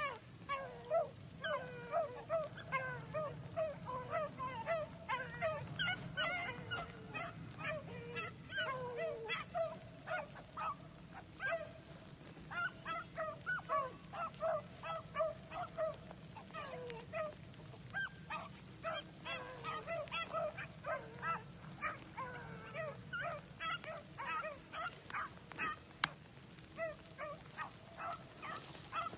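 Several hounds baying on a rabbit's trail: overlapping short, falling calls, a few each second, with brief lulls. A single sharp snap comes near the end.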